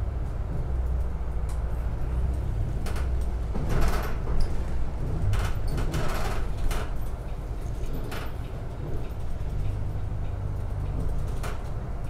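Interior of a moving city bus: a steady low engine and road rumble, with scattered rattles and knocks from the cabin, bunched around four and six seconds in.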